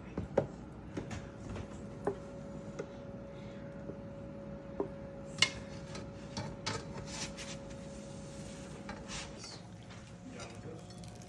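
Kitchen utensils and dishes clinking and knocking now and then, the sharpest clink about five and a half seconds in, over a faint steady hum that stops near the end.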